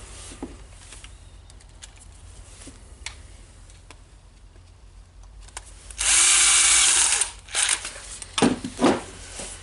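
Cordless drill-driver running for about a second and a half, driving one of the small screws that hold the ball bearing in the router's housing. A few sharp clicks of the tool and parts being handled follow.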